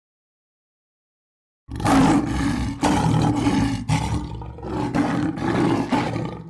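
A big cat roaring: after a second and a half of silence, several rough, loud roars follow one another about a second apart.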